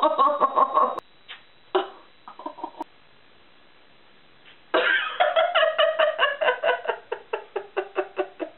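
A woman laughing in repeated ha-ha pulses: a burst at the start that stops about a second in, a short one about two seconds in, then a long run from about five seconds in that slows and fades.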